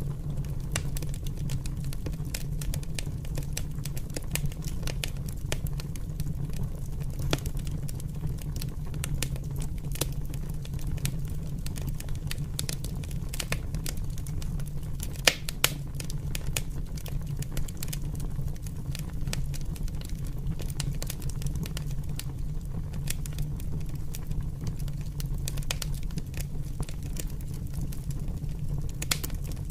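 Open fire burning: a steady low rumble of flames under constant crackling, with two sharper pops close together about halfway through.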